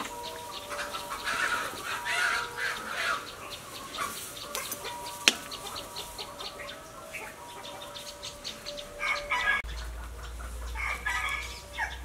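Chickens clucking, with a rooster crowing, and a single sharp click about five seconds in.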